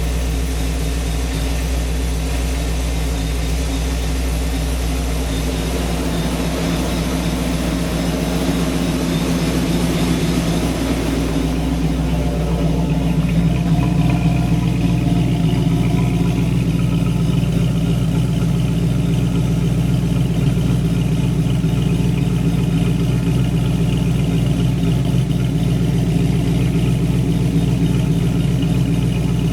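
Kenne Bell-supercharged 1994 Mustang GT 5.0 V8 running steadily on its first run after a rebuild. About twelve seconds in, the sound shifts: the upper hiss fades, the lower engine note grows stronger and it gets slightly louder.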